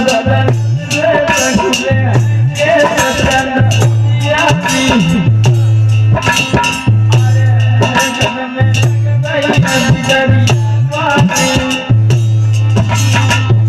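Live Indian folk-devotional music: a harmonium playing a melody over a steady repeating bass note, with a hand drum and rattling percussion keeping a quick, even beat.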